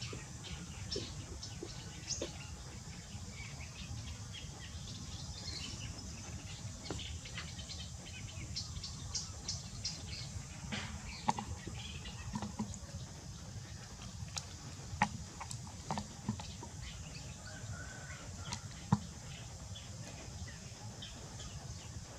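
Outdoor ambience: scattered short bird chirps and insect noise over a steady low hum, with a few sharp clicks or taps.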